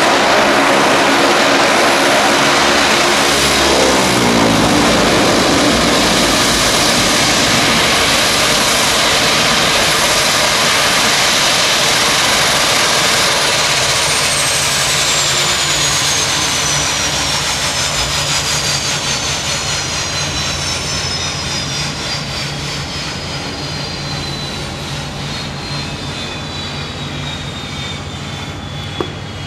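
Saab 340B's two General Electric CT7 turboprop engines shutting down. The propeller drone drops sharply in pitch a few seconds in. The high turbine whine then winds down in a long falling glide as the sound fades.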